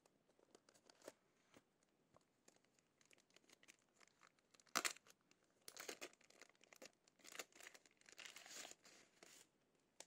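Protective packaging wrap crinkling and tearing as it is pulled off. Faint handling ticks come first, then a sharp crackle about five seconds in, followed by repeated bursts of crinkling until shortly before the end.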